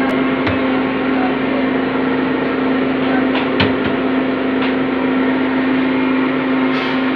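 A steady, loud droning hum runs throughout. Over it come a few light knocks and clicks from the wooden cabinet's glass doors being handled: one about half a second in, and a cluster between three and a half and four and a half seconds in.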